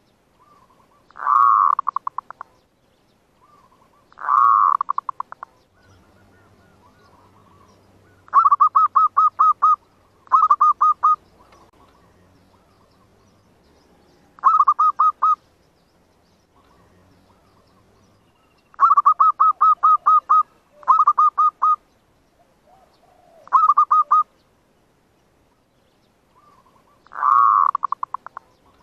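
Zebra dove calling: nine short bursts of rapid staccato cooing notes, each about a second long, with gaps of a few seconds between them. This is the cooing song used as a lure (pikat) call to draw wild zebra doves into a trap.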